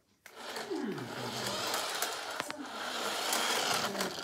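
Small electric drive motor and gears of a cheap toy RC car whirring as it drives. The pitch drops sharply about a second in, then holds and slowly rises.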